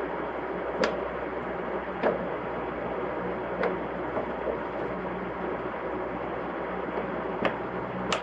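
Two cats scuffling on a wooden floor: a few sharp clicks and taps of paws and claws on the boards, spread irregularly, over a steady background hum.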